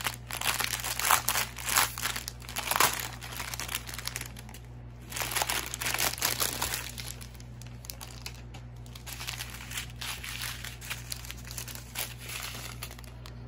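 Clear plastic bags of diamond painting drills crinkling as they are handled and unfolded, in irregular bursts, louder in the first few seconds and again about six seconds in, then softer.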